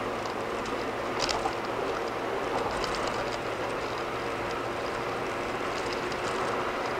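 Steady tyre and road noise of a car driving at about 55 mph on a concrete road surface, heard inside the car. A few light ticks come through, the clearest about a second in.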